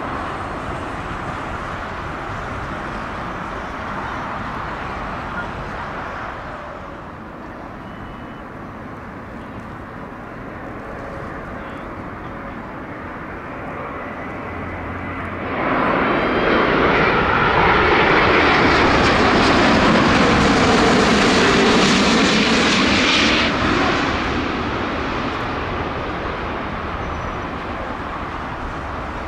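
Jet airliner noise: a steady, distant jet rumble at first, then a twin-engine jet airliner on final approach passes low overhead. Its noise rises suddenly about halfway in, stays loud for about eight seconds with a sweeping, shifting tone, then fades as it heads down to the runway.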